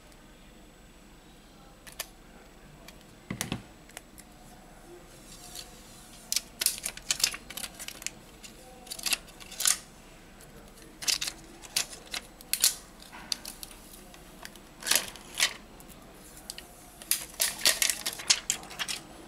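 Thin plastic protective film crackling in short, sharp bursts as it is handled and peeled off a phone display module, thickest near the end. There is a single soft knock about three seconds in.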